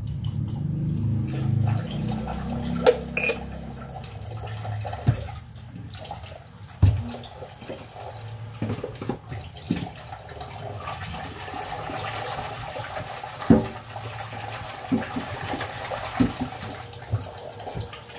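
Kitchen faucet running water into a stainless-steel sink during dishwashing, with scattered sharp clinks and knocks of dishes and pans being handled, the loudest about two-thirds of the way through.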